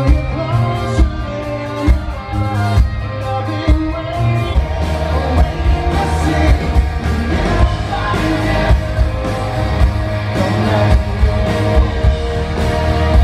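Live rock band playing over a concert PA: a male singer over electric guitar and a steady drum beat.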